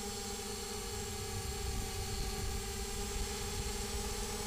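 FPV multirotor's electric motors and propellers whining steadily, picked up by the onboard action camera, with a low rumble of wind and frame vibration on its microphone.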